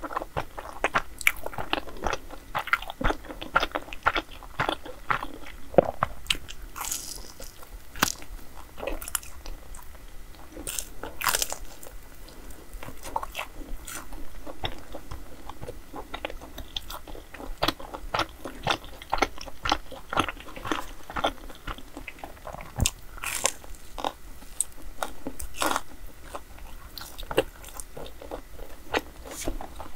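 Close-miked eating: a person biting and chewing food, with many sharp, irregular crunchy clicks.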